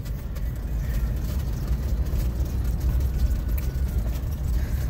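Pickup truck's low, steady engine and cab rumble, heard from inside the cab as it rolls slowly along a bumpy dirt track.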